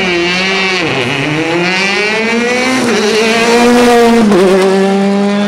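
Rally car's engine at full throttle passing close by: its pitch dips sharply about a second in, then climbs steadily, and it is loudest at about four seconds, when the pitch drops as the car goes by.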